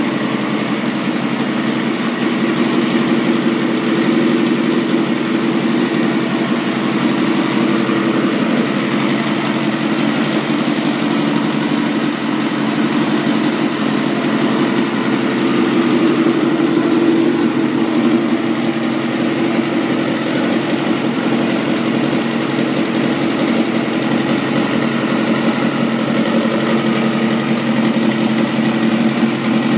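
Honda Jade 250's inline-four engine, breathing through an aftermarket aluminium silencer, idling steadily.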